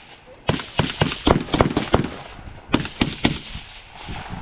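Gunfire from several shooters firing at once: a dozen or so sharp, overlapping shots at uneven spacing, starting about half a second in.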